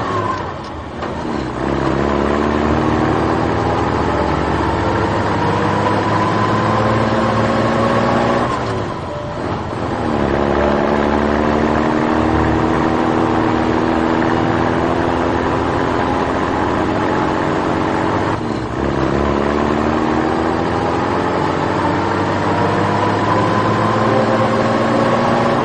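Vehicle engine revving up slowly, its pitch climbing steadily for several seconds before dropping back and climbing again, three times over.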